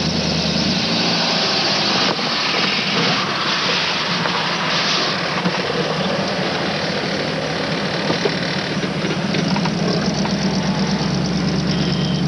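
Car engine running, heard from inside the car: a steady low hum under a broad hiss.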